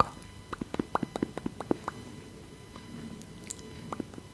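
Soft, wet clicks close to the microphone: a quick, irregular run of them in the first two seconds, then a few scattered ones.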